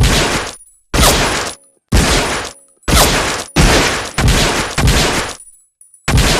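M1911A1 .45 ACP pistol firing seven shots, each with an echoing tail: four about a second apart, two more in quicker succession, then a pause of nearly two seconds before the last shot.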